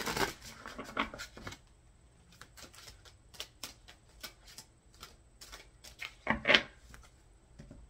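A deck of tarot cards being shuffled by hand: a run of soft, irregular card clicks and riffles, with one louder short sound about six and a half seconds in.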